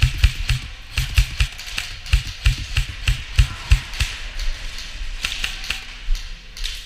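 Quick footsteps of a player in gear moving fast, heavy thuds with clicks and rattles at about three or four steps a second, thinning out after about four seconds.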